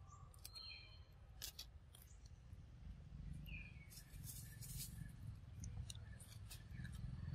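Faint crisp clicks and snaps of a macaque biting into and chewing a piece of fruit, in a few scattered bursts, with a few short bird chirps over a low rumble.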